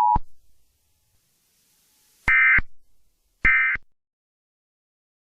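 An Emergency Alert System broadcast: the two-tone attention signal cuts off just after the start, then two short bursts of warbling digital data tones follow about a second apart. These bursts are the SAME end-of-message codes that close an EAS alert.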